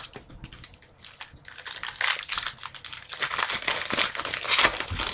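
Foil wrapper of a trading card pack crinkling as it is handled and torn open. It is louder from about two seconds in.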